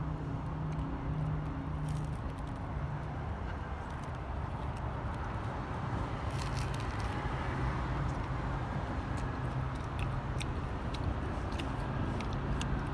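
Steady low outdoor rumble with a faint hum, with scattered small clicks and crunches of eating.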